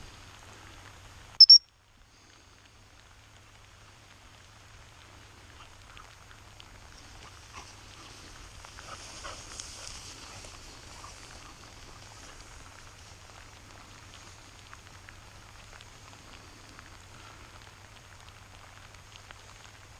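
A dog handler's whistle gives two quick, loud, high-pitched blasts about a second and a half in. Steady rain and rustling through wet grass follow.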